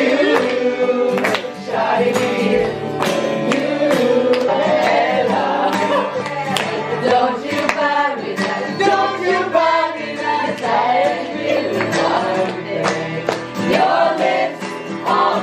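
A family group of men, women and children singing together, with hand-clapping and a strummed acoustic guitar.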